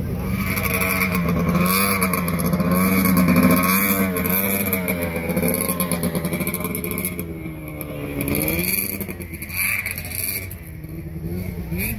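Snowmobile engine idling with its pitch rising and falling in short throttle blips, fading over the last few seconds.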